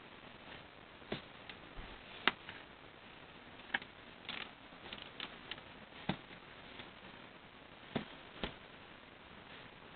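Scattered light plastic clicks and knocks, about seven at irregular moments with the sharpest a little over two seconds in, as a baby's feet push and knock a plastic crib soother toy on the crib rail, over a faint steady hiss.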